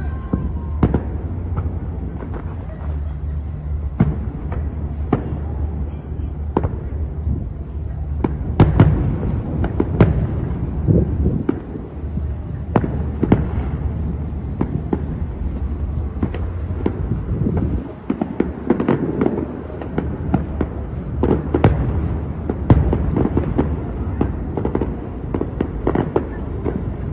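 Fireworks going off: many sharp bangs at irregular intervals over a continuous low rumble, the loudest near 9, 10 and 23 seconds in.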